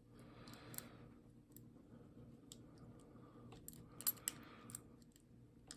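Faint, irregular metallic clicks and scrapes of a pick wire working inside an ERA five-lever padlock, pushing at the bolt, with a small cluster of clicks about four seconds in. A low steady hum runs underneath.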